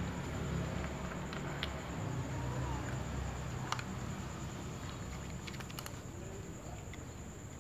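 Cats eating dry kibble from plastic bowls: crunching and chewing with scattered small clicks, over a low steady rumble.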